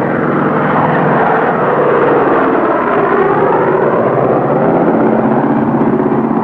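Single-engine biplane's piston engine running hard as the plane flies low and close past, its note bending in pitch as it passes.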